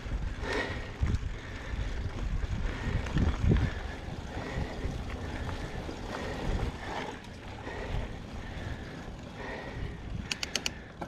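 Mountain bike rolling along a dirt trail: a steady tyre rumble with wind buffeting the microphone, knocks and rattles over bumps, and a quick run of sharp clicks near the end.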